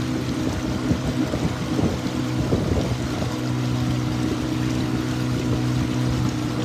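Motorboat engine running at a steady speed, an even low drone with noise of water and wind around it.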